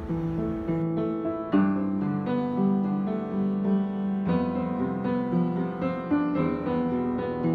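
Background piano music, notes and chords struck one after another.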